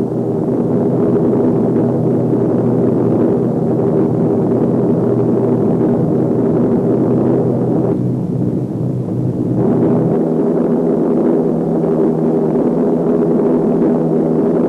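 Steady drone of a B-17 Flying Fortress's four Wright R-1820 Cyclone radial engines in flight. The drone dips briefly about eight seconds in, and its pitch steps up slightly about ten seconds in.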